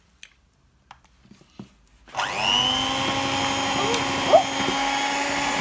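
Electric hand mixer switched on about two seconds in, its motor quickly winding up in pitch and then running steadily with its beaters in the batter. A few light clicks come before it starts.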